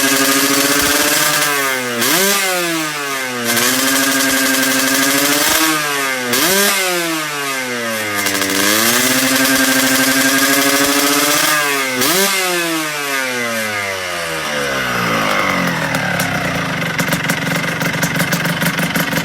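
Yamaha RXZ single-cylinder two-stroke motorcycle with an aftermarket exhaust pipe idling and being revved by hand three times, the pitch shooting up and falling back each time. Near the end it settles into a lower, uneven idle.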